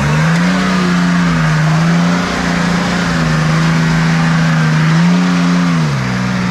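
A 4WD's engine revving hard under load as it drives up a steep, muddy hill. The revs climb at the start, hold high and steady, then drop away near the end.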